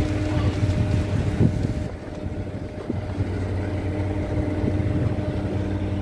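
A steady, low mechanical hum, with a faint knock now and then.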